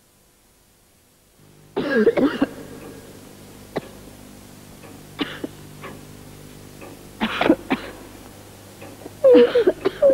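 Repeated coughing in four separate fits, about 2, 5, 7.5 and 9.5 seconds in, over a faint steady hum.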